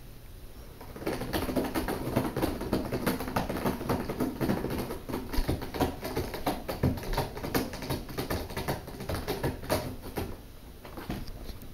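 Cat scratching and clawing at the corrugated cardboard inside a cardboard scratcher box: a rapid, irregular run of raspy scratches starting about a second in and easing off shortly before the end.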